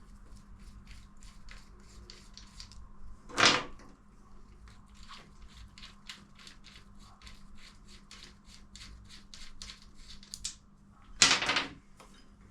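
A ratchet spanner clicking steadily, about three to four clicks a second, while undoing the gearbox mounting nuts. Two louder knocks come about three and a half seconds in and again near the end.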